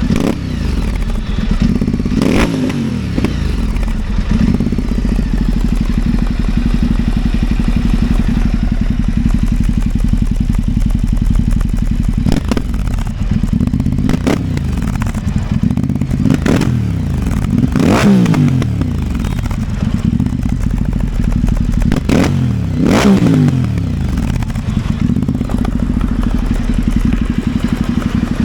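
Ducati Multistrada 950's L-twin engine idling through a Termignoni titanium full-system exhaust, with several sharp throttle blips in which the revs jump and fall back to idle, the strongest around the middle and about two-thirds through.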